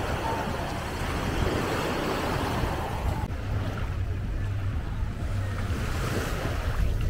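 Small waves washing onto a sandy beach, with wind rumbling on the microphone. About three seconds in the sound changes abruptly: the wash turns softer and the wind rumble is left as the main sound.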